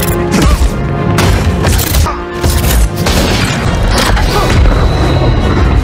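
Action film soundtrack: loud dramatic music mixed with booming impacts and crashes, several heavy hits in quick succession over a deep bass rumble, with a brief drop about two seconds in.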